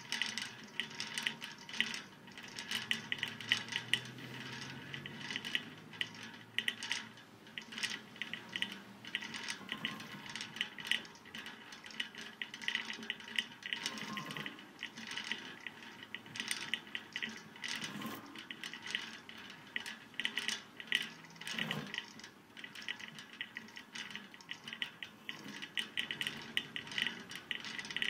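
Eerie horror-film score: a continuous texture of small metallic clinks and rattles, with a few low swells.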